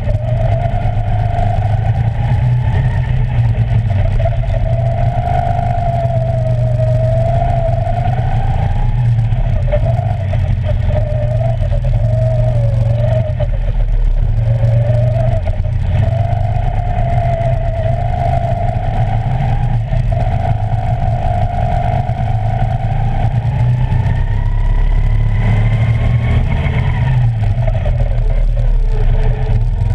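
Go-kart running flat out, heard from a camera mounted on the kart: a whine rises and falls in pitch with speed through the corners over a steady low rumble. The whine climbs to its highest near the end, then drops away as the kart slows.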